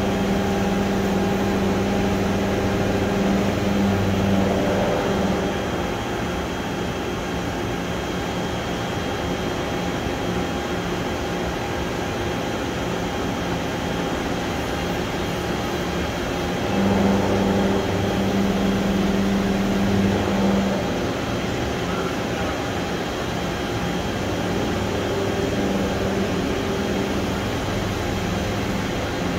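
Toshiba BP-150 CNC horizontal boring mill running while its rotary table turns. The machine gives a steady hum that swells twice, for a few seconds at the start and again for about four seconds past the middle, over a constant whir with a thin high tone.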